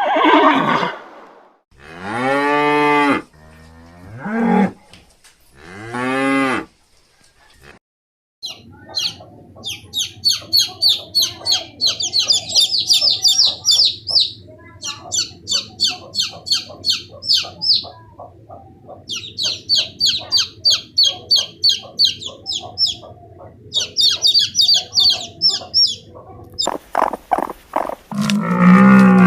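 A cow mooing a few times, in long low calls. Then comes a long stretch of rapid, high-pitched repeated calls over a steady low hum.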